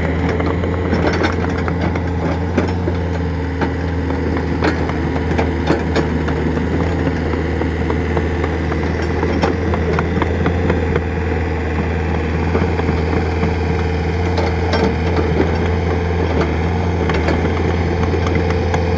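Excavator engine running steadily, with scattered short knocks and clanks over it.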